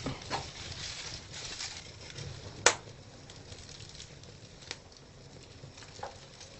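Dried banana leaves burning over a gas burner, crackling faintly, with a sharp click about two and a half seconds in and two softer ones later.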